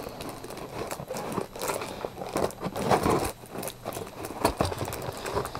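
Paper packing material being handled and pulled apart: irregular rustling, crinkling and crackling.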